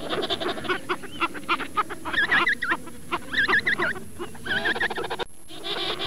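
Penguins calling: many overlapping calls of rapid pulses and wavering, repeated high notes, with a brief break about five seconds in.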